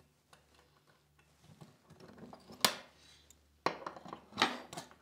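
Side cutters snipping lockwire off bolt heads: light metallic rustling, then three sharp clicks about a second apart in the second half, the last with a short metallic rattle.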